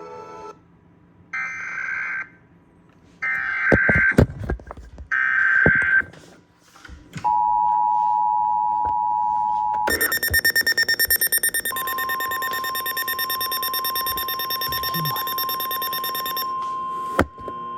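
Emergency Alert System activation: three short screeching bursts of SAME header data tones, then the steady two-tone EAS attention signal for about three seconds. About ten seconds in, a harsh, rapidly pulsing alarm tone starts, and a steady single-pitch alert tone joins it shortly after, so that two alerts overlap.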